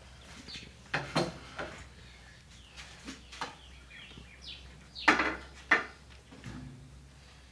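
Plates, a metal pot and a serving utensil clinking and knocking as food is dished out: a handful of separate clatters, the loudest two close together about two-thirds of the way in.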